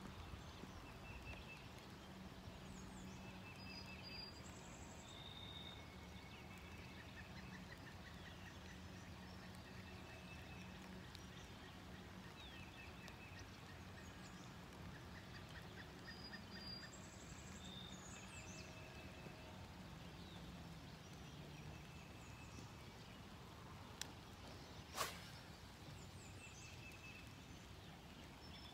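Faint steady hiss of light rain, with scattered bird calls and songs, and two sharp clicks near the end, the second louder.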